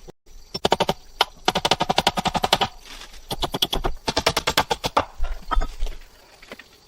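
Rapid series of sharp knocks or clicks, about ten a second, in two runs of two to three seconds each.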